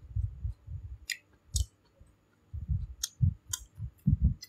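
Close-up chewing and mouth sounds: soft low thuds at an uneven pace, with a few sharp lip-smacking clicks.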